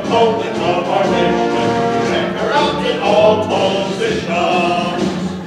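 Music from a stage song-and-dance number: men's voices singing in harmony over the accompaniment.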